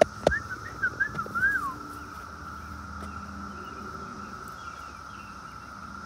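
Cicada chorus, one steady high drone. Over it come a few short bird chirps in the first two seconds and a couple of sharp clicks right at the start.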